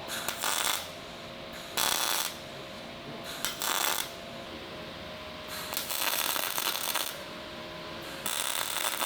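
Metal being worked by hand on the steel turret: about five short bursts of scraping and clinking, the longest near the middle.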